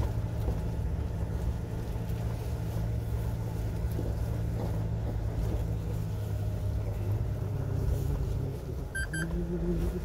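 Truck engine running steadily while climbing a slope, heard from inside the cab; its tone drops about seven seconds in and comes back near the end. Two short high chirps sound just before the end.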